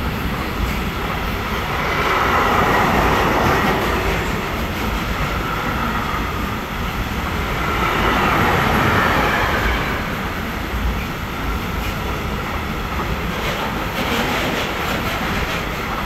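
Container flat wagons of an electric freight train rolling past: a steady rumble of steel wheels on the rails that swells twice, about two and eight seconds in, with some clickety-clack of wheels over the rail joints.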